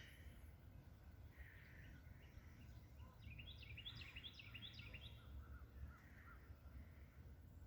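Faint outdoor ambience with a steady low rumble. A small bird gives a quick run of short, falling chirps about three seconds in, lasting around two seconds, with a few fainter calls before and after.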